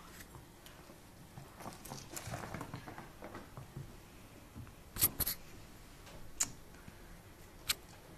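Pets moving about on the floor: quiet scuffling and light pattering, with a few sharp clicks. The loudest is a quick double click about five seconds in.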